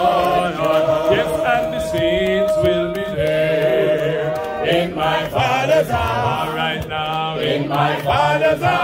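A group of voices singing a gospel hymn unaccompanied, with long held notes between shorter phrases.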